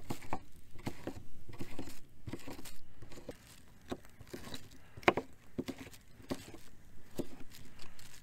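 Knife chopping a green bell pepper on a small wooden cutting board: irregular sharp knocks of the blade cutting through the crisp pepper onto the wood, one louder than the rest about five seconds in.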